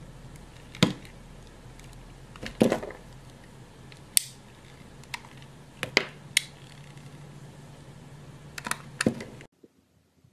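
Snap-off utility-knife blade slicing through a bar of soap: a series of short, sharp crunchy cuts at irregular intervals over a steady background hiss. The sound stops abruptly near the end.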